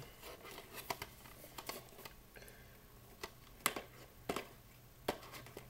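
Scattered sharp clicks and light taps from small objects being handled by hand, about seven of them, irregularly spaced, with some close together near the start.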